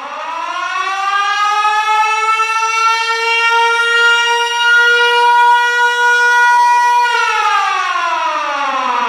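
Military alarm siren wailing: one cycle that starts after a brief silence, rises in pitch over about two seconds, holds a steady high tone, then begins to wind down about seven seconds in.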